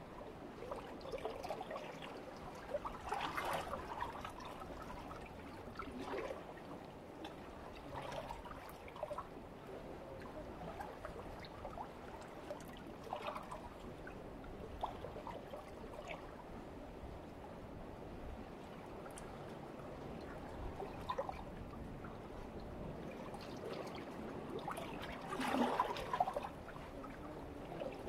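Calm Mediterranean sea water lapping and gurgling among shoreline rocks, with small irregular splashes. The two biggest splashes come about three seconds in and near the end.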